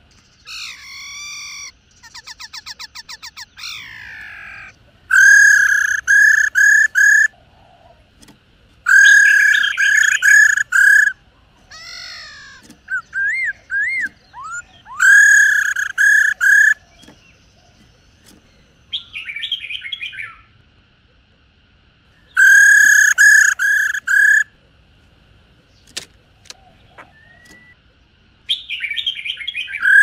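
Black-throated laughingthrush calling: several loud bursts of three or four quick ringing notes, spaced a few seconds apart, with a fast even rattling trill a couple of seconds in and scattered whistles and harsh chatter between.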